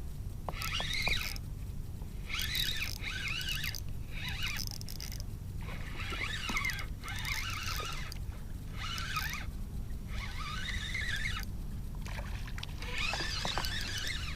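Fishing reel working in repeated bursts of about a second each while a hooked redfish is fought from a kayak.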